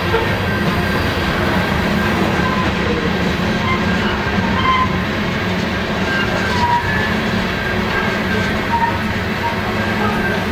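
Freight train of covered hopper cars rolling slowly past, with a steady rumble and rattle of steel wheels on the rails.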